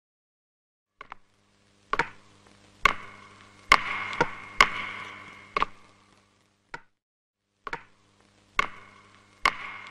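A walking stick knocking on a tiled floor, about once a second, with each knock ringing briefly, over a faint steady hum.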